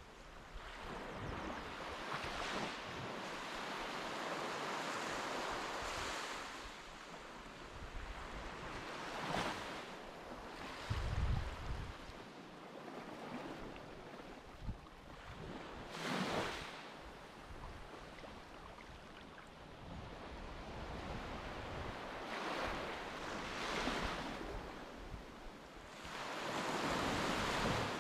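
Surf washing onto a beach, the noise swelling and falling away every few seconds, with wind buffeting the microphone about eleven seconds in.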